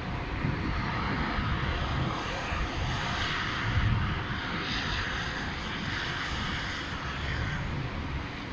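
Blizzard wind rushing and gusting, buffeting the microphone with an uneven low rumble under a steady hiss that swells midway.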